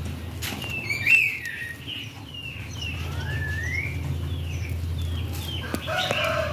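Small birds chirping repeatedly in short, high notes, with one longer rising whistle partway through. Near the end a rooster starts to crow.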